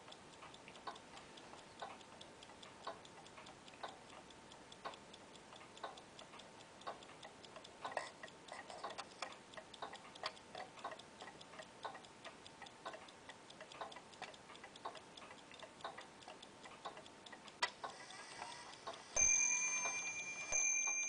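A clock ticking steadily, about one stronger tick a second with softer ticks between. Near the end a high metallic ringing tone sounds twice, each time fading slowly.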